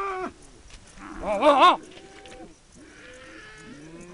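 Livestock calling: a held call fades out at the start, then a loud, wavering, bleat-like call comes about a second and a half in, followed by fainter calls.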